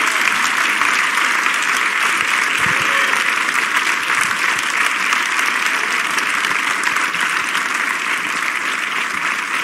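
A church congregation applauding steadily in a standing ovation.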